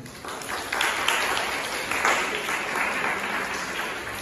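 An audience of students clapping, with the applause building about half a second in.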